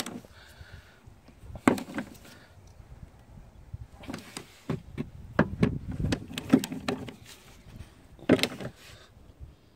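Socket wrench on a long extension working the upper mounting bolt of a VW Golf Mk4 rear shock absorber: irregular metallic clicks and knocks. They come singly near the start, under two seconds in and about eight seconds in, with a busier run of them from about four to seven seconds in.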